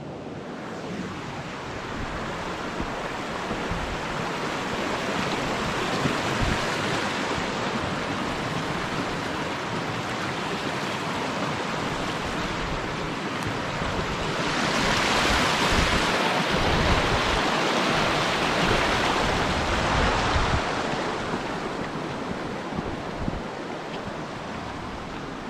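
Rushing river water: a steady hiss-like roar that grows louder about fifteen seconds in and eases again about five seconds later.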